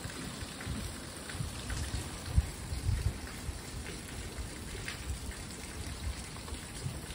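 Ice rain falling: an even hiss of rain with many small scattered drop ticks, and a few low thumps.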